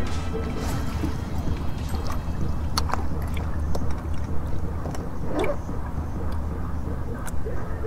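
A steady low hum from the boat on calm water, with a few sharp clicks and taps of fishing gear being handled: a couple about three seconds in and one near the end.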